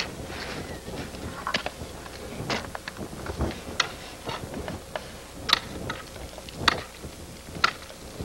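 Ice tools and crampons striking hard ice as a climber moves up a steep ice wall: irregular sharp knocks about once a second, two of them louder than the rest, over a steady hiss.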